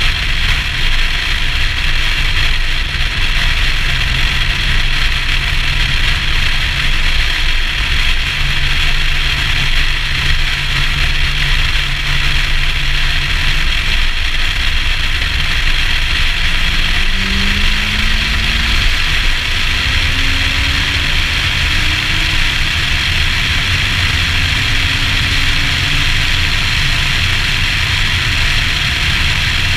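Nissan Skyline ER34 driving at speed, heard through a camera mounted on the outside of the car: steady wind and road noise over the engine's low drone. In the second half the engine note rises several times as the car accelerates.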